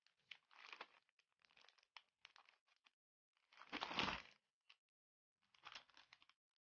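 Clear plastic bags around grid sticky-note pads crinkling as they are handled, in several short rustling bursts. The loudest comes about four seconds in, as pads are set down on a pile, with another brief burst near the end.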